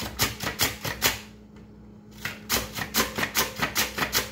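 Peeled raw potato pushed back and forth across a plastic handheld mandoline slicer, a thin slice cut with each quick scraping stroke, about five strokes a second. The strokes stop for about a second partway through, then start again.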